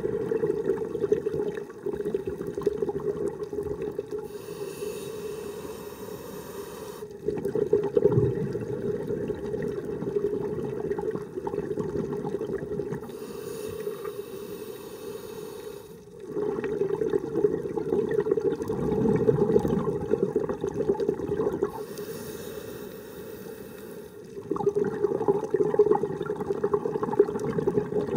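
Scuba diver breathing through a regulator underwater, slow and even: a bubbling rush on each exhale alternating with a thin hiss on each inhale, four exhales and three inhales.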